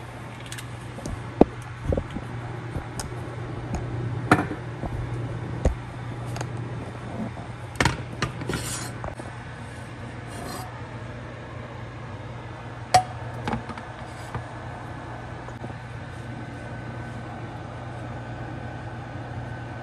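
Kitchen handling sounds: scattered knocks, clicks and scrapes of cookware and utensils over a steady low hum, with the sharpest knocks about a second in and again about two-thirds of the way through.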